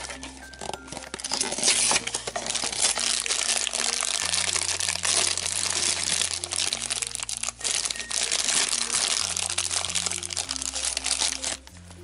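A shiny black foil blind bag crinkling steadily as it is handled and opened by hand, with light background music underneath. The crinkling starts about a second and a half in and stops shortly before the end.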